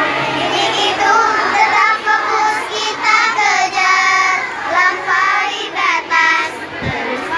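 A small group of young girls singing their team cheer together, a short chanted song.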